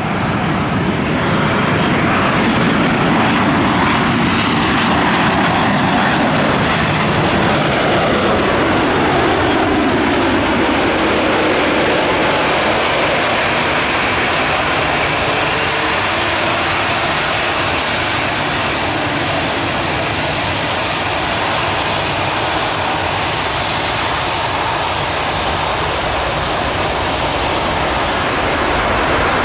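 Boeing 787-9 Dreamliner's twin General Electric GEnx-1B turbofan engines running on final approach and through touchdown and rollout: a loud, steady jet noise.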